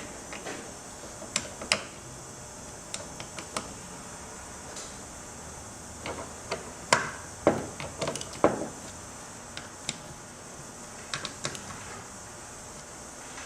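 Scattered light clicks and clinks of small metal transmission parts and hand tools being handled, with a cluster of louder knocks about seven to eight and a half seconds in, over a steady hiss.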